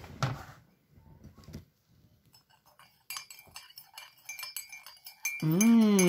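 A metal teaspoon stirring coffee in a ceramic mug: rapid clinks against the sides with a thin ringing tone, starting about halfway through. Near the end, a person makes a long humming sound that wavers up and down in pitch, louder than the clinking.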